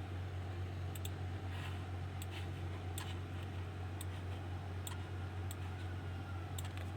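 Steady low electrical hum with about ten faint, irregularly spaced clicks.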